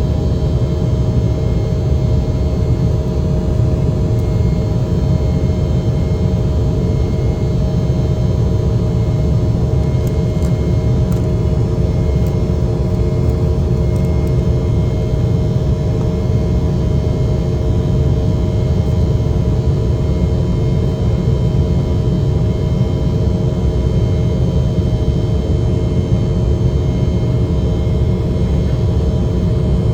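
Steady cabin noise of an Embraer 190 jet airliner: a constant low rumble with the steady drone of its GE CF34 turbofan engines, holding several even tones without change.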